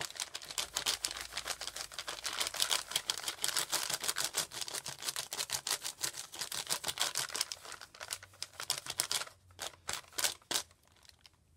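Crayola oil pastel scribbled fast across crumpled notebook paper: a rapid run of scratchy strokes that thins out and stops near the end.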